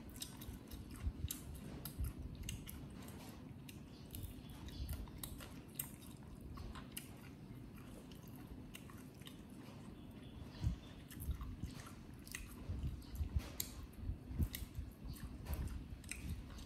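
Chewing and biting: irregular small clicks and crunches of food being eaten, with soft low thumps, busier in the last few seconds.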